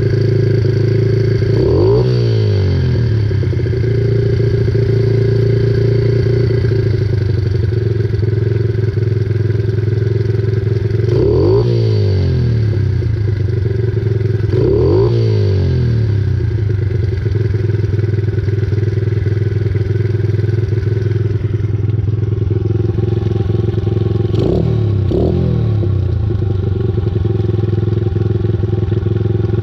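Honda XR70 single-cylinder four-stroke engine, fitted with an 88cc big bore kit, idling steadily and blipped briefly a few times: once near the start, twice in the middle and a quick pair near the end.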